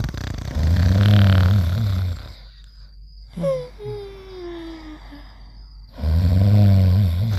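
Cartoon snoring: a loud, low snore, then a whistle falling in pitch on the out-breath, then a second loud, low snore near the end.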